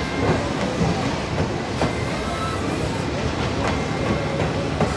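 The JNR Class C57 steam locomotive C57 1 and its train running, a dense steady rumble with a regular beat about twice a second.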